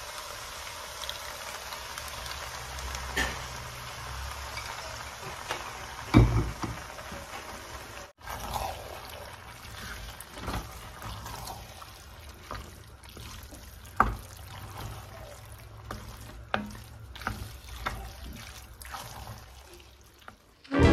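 Thick cream sauce poured from a saucepan onto pasta in an enamelled cast-iron pot, then a wooden spoon stirring through the pasta, with wet squelching and knocks against the pot. The loudest knocks come about 6 and 14 seconds in.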